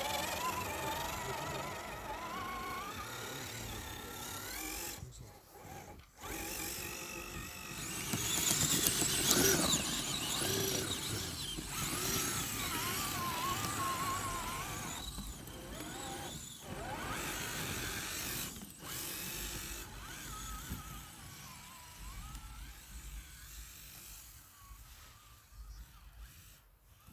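Electric motors of radio-controlled crawlers whining as they drive, the pitch rising and falling with the throttle, loudest about a third of the way in and fading towards the end.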